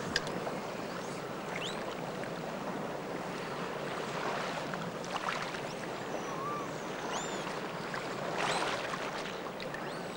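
Steady rushing noise of running water, with a few faint, short, high chirping calls over it and a brief click right at the start.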